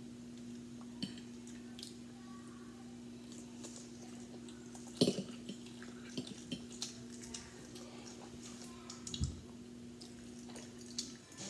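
Metal fork clicking and scraping against a plate while eating eggs with cheese, in a few sharp clinks, the loudest about five seconds in, with chewing between them. A steady low hum runs underneath and stops near the end.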